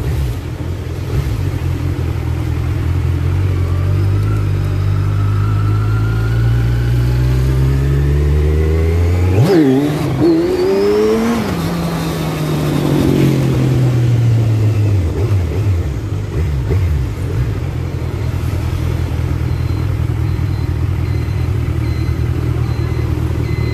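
Kawasaki Z1000's inline-four engine on its stock exhaust, heard from the rider's seat: the revs rise slowly as the bike pulls through the street, drop sharply at a shift about ten seconds in and climb again, then fall away as it slows and settle into a steady low idle for the last several seconds.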